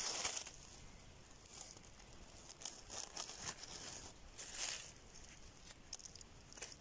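Dry fallen oak leaves rustling and crinkling, as a few short, faint rustles with quiet gaps between them.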